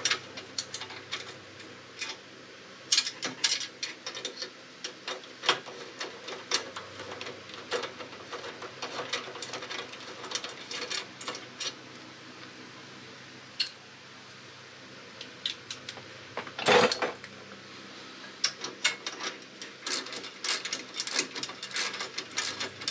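Hand ratchet clicking in short runs, with small metal clinks, as the exhaust muffler mounting bolts are tightened; one louder clunk about 17 seconds in.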